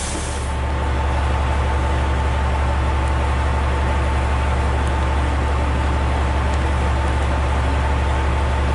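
Steady low engine drone of a heavy vehicle, unchanging throughout, with a faint steady tone above it.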